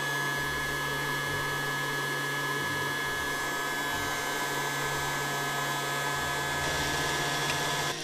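Casdon toy Dyson DC22 cylinder vacuum cleaner running with its small battery-powered suction motor, a steady whine.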